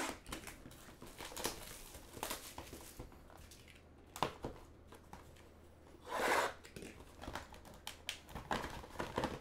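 Cellophane shrink wrap on a sealed trading card box being slit with a small plastic cutter and pulled away: scattered crinkling and rustling, with a louder tear about six seconds in, then cardboard handled as the box is opened.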